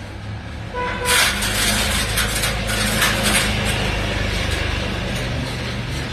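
Electric arc welding: the arc strikes about a second in and crackles steadily, over a steady low hum.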